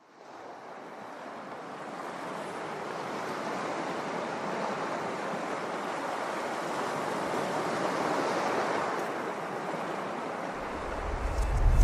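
Surf washing onto a rocky shore: a steady rush of waves that fades in at the start. A deep low rumble comes in near the end.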